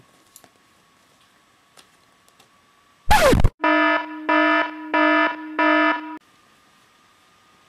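Editing sound effects: a short loud burst with a falling sweep about three seconds in, then four evenly spaced buzzes of a harsh buzzer, a joke censor buzzer.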